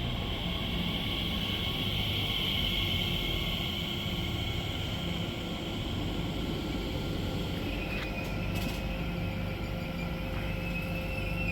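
Electric train at a station, a steady low rumble with a high whine that swells a couple of seconds in and then eases; a few short clicks about eight seconds in.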